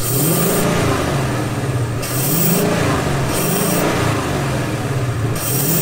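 Ford Mustang GT's 5.0-litre V8 running through a cone-filter cold air intake, revved in about four short blips. Each blip brings a rush of hiss from air being sucked into the intake.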